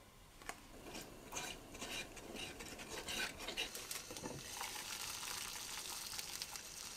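Wooden spoon stirring a little liquid seasoning in a ceramic earthenware pot, with irregular light knocks and scrapes against the pot's sides.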